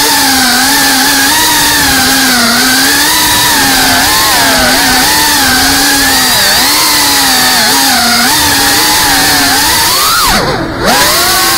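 FPV racing quadcopter's brushless motors and propellers whining, the pitch wavering up and down with the throttle. Near the end the pitch drops sharply and the sound dips for a moment, then climbs back up.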